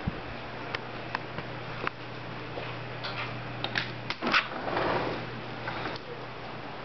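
Scattered sharp clicks over a steady low hum, then a louder rattling scrape about four seconds in as a wooden door is passed through. The hum stops soon after.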